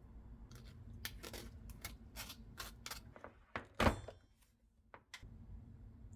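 Kitchen handling sounds: a series of light clicks and knocks, the loudest about four seconds in, over a low steady hum.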